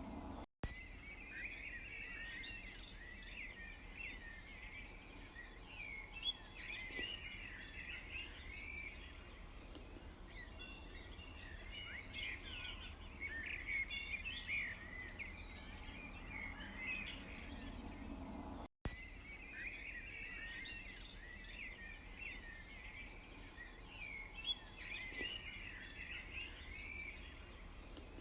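A chorus of small songbirds chirping and twittering continuously over a faint low background rumble. The sound cuts out for an instant twice, about half a second in and again about two-thirds of the way through, where the same stretch of birdsong starts over as a loop.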